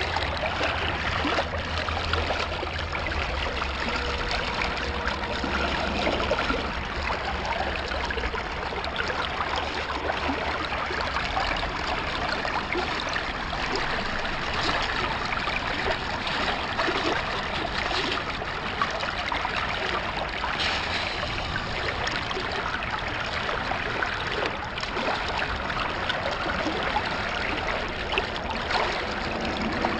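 Shallow creek water running and trickling steadily.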